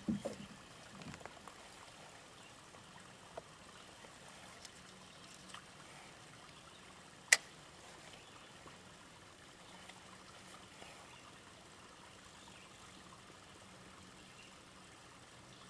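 Faint, steady lake-water ambience with light trickling and lapping around a kayak. A few small ticks are heard, and about seven seconds in there is one sharp click.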